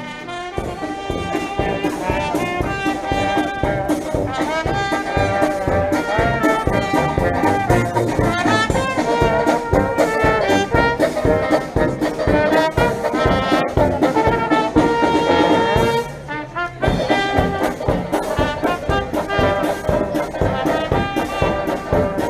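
Instrumental background music led by brass, trumpet and trombone, over a steady beat, with a short break about 16 seconds in.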